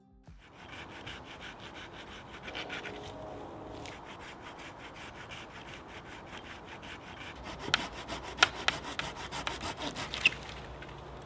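Hand saw cutting through a fallen branch in steady back-and-forth strokes, with a few loud sharp cracks toward the end.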